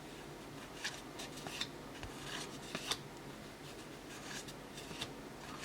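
Faint rustling and light ticks of O-Pee-Chee hockey cards being slid and flipped through by hand, a short scrape every second or so.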